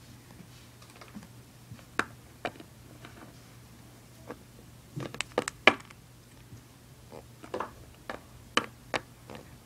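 Irregular light taps and clicks of small plastic toy figures knocking on a wooden tabletop as they are handled, with a quick cluster of taps about halfway through. A faint steady hum runs underneath.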